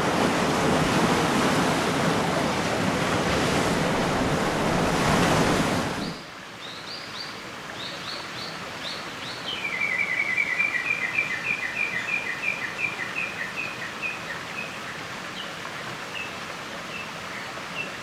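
Sea surf washing on a rocky shore, cutting off about six seconds in. Then a small bird sings in a quiet valley: a few short high notes, then a long run of quick, slightly lower notes, and scattered single notes near the end.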